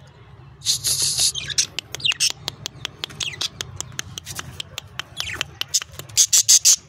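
Budgerigars squawking and chattering in a wire cage, with a loud screech about a second in and a run of shrill calls near the end, and many short sharp clicks in between.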